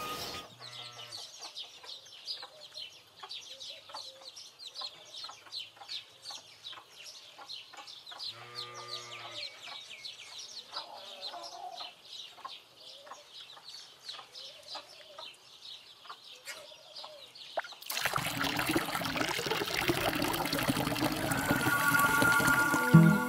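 Farmyard ambience of hens clucking, with high chirps and one short low call about eight seconds in. About eighteen seconds in, a louder, even rushing noise takes over, and guitar music comes in near the end.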